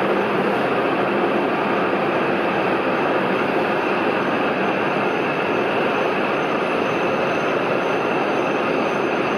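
Hokuriku Shinkansen Hakutaka train pulling into the platform, a steady rumble of wheels and running gear as the cars roll past. A faint high, steady whine comes in about halfway through.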